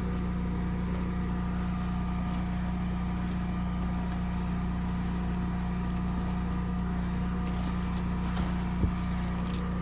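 Home standby generator engine running at a steady speed, a constant low hum.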